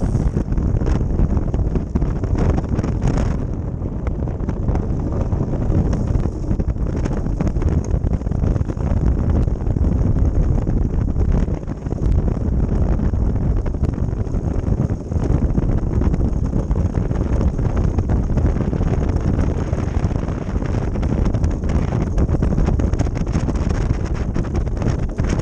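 Wind rushing and buffeting over the microphone of a camera riding on a moving ice boat, loud and continuous, with a steady high hiss underneath.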